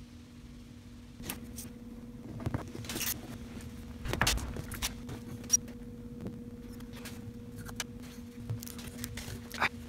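Light clicks and taps from handling a wooden workpiece and pressing glued wooden biscuits into their slots, with a louder knock about four seconds in, over a steady low hum.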